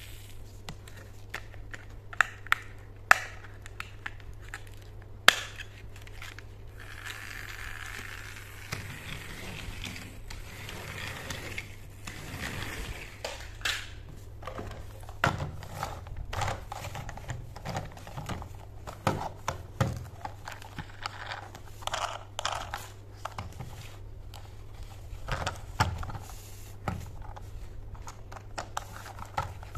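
Hard plastic toy trains being handled and set down: scattered clicks and taps of plastic, three sharp loud clicks in the first few seconds, and a stretch of rustling a quarter of the way in. A faint steady hum runs underneath.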